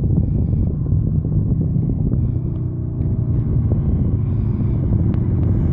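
Custom Harley-Davidson Sportster's V-twin engine running with a steady low rumble, wind buffeting the microphone.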